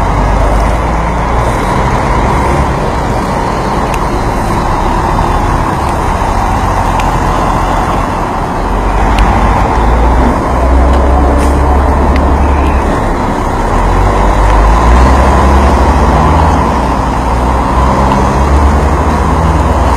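Road traffic noise: vehicle engines running in a continuous din, with a deep rumble that swells about ten seconds in and again a few seconds later.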